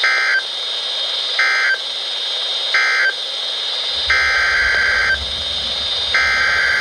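NOAA Weather Radio SAME data bursts over a steady radio hiss, each a short harsh buzz. Three short bursts about a second apart are the end-of-message code closing one alert. Two longer bursts then start the coded header of the next alert, with a low rumble coming in under them about four seconds in.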